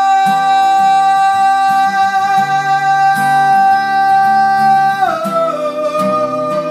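A man singing one long held note that slides down to a lower note about five seconds in, over strummed acoustic guitar.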